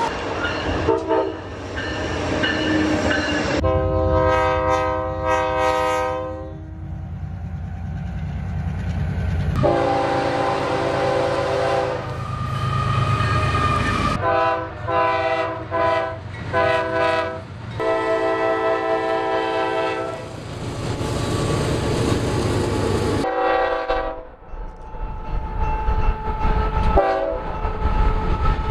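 BNSF freight train's locomotive air horn sounding a series of long and short blasts, several notes at once, over the steady low rumble of the passing train.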